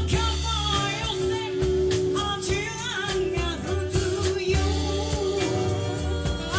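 A live soul band playing a song: a lead vocal sings over drums, bass, guitars, keyboard and alto saxophone, at a steady full level.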